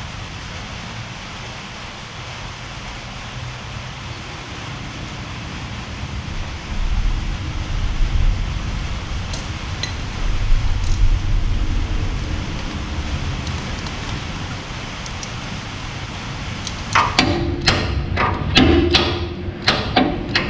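Steady hissing background noise with a low rumble and a few faint ticks. About three seconds before the end, a music track with a sharp percussive beat starts.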